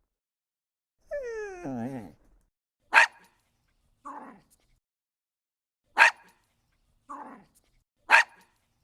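A dog whining, one wavering whine that falls in pitch, then three short sharp barks a few seconds apart, with quieter, lower barks between them.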